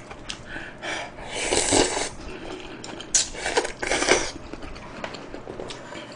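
A person eating close to the microphone: chewing stir-fried seaweed stems and slurping food from a bowl, heard as several short wet bursts, the loudest about a second and a half in and again around three to four seconds.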